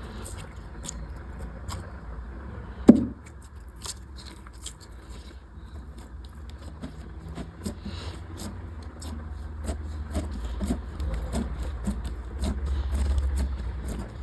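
Slime being squished and poked, giving many small rapid clicks and crackling pops, with one loud thump about three seconds in.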